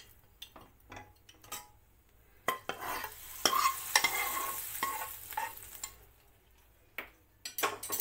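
A silicone spatula stirring and scraping dal in an aluminium pressure cooker, with scattered clicks and knocks against the pot. In the middle there is a stretch of sizzling hiss as dal is tipped from the hot tadka pan back into the cooker.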